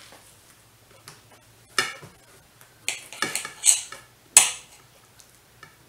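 Kitchen utensils and dishes clinking: several sharp clinks and scrapes of metal on crockery while raw steak is cut into strips, the loudest about four and a half seconds in.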